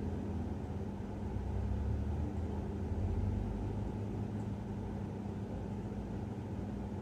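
Muffled low rumble of road traffic heard through a closed window, swelling a little around two to three seconds in, over a steady low hum.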